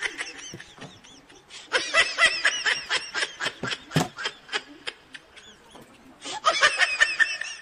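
High-pitched giggling laughter in two bursts of quick, rising-and-falling pulses: a longer run in the first half and a shorter one near the end, with a sharp click partway through.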